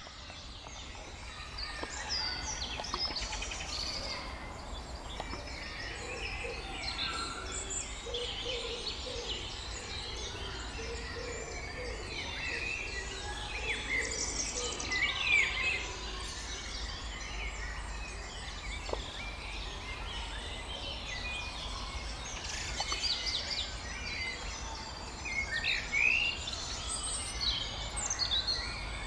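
Woodland birdsong: several birds singing and calling at once, with many short chirps and trills throughout over a steady low rumble.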